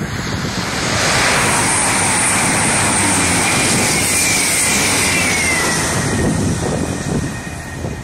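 A coupled pair of CrossCountry Voyager diesel-electric units (Class 221 Super Voyager and Class 220 Voyager) passing at speed, their underfloor Cummins diesel engines and wheels on the rails making a loud, steady roar. The roar builds within the first second, a whine falls in pitch around the middle, and the sound fades near the end.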